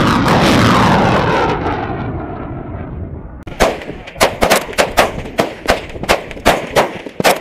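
A truck-mounted rocket launcher firing a rocket: a loud rush that falls in pitch and fades over about three seconds. About three and a half seconds in, AK-pattern assault rifles start firing single shots, about ten of them at irregular spacing.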